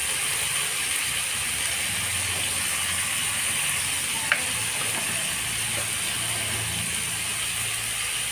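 Small prawns frying in hot oil in a steel kadai: a steady crackling sizzle, with one sharp click about four seconds in.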